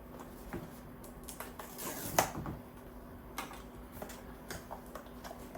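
Small cardboard blind box being handled and opened: scattered light clicks and rustles of the packaging, with one louder snap about two seconds in.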